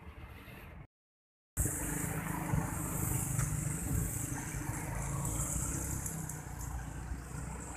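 Road traffic of cars and motorcycles running past on the road at a level crossing. The audio cuts out to silence for about half a second near the start, then comes back louder.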